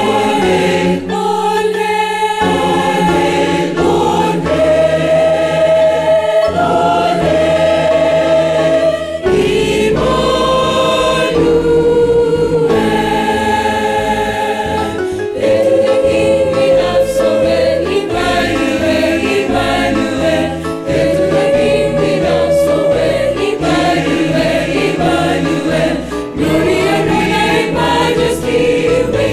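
Mixed choir of men and women singing a gospel hymn in harmony, in long held chords phrase after phrase.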